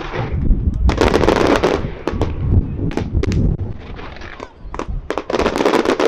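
Fireworks display: rapid volleys of bangs and crackling from many shells fired in a row, heaviest about a second in and again near the end, over a low rumble.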